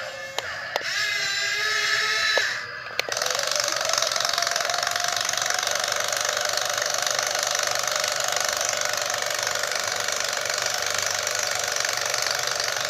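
YG258C excavator working: pitched hydraulic whine wavering up and down for the first few seconds, then a dense, steady mechanical clatter from about three seconds in.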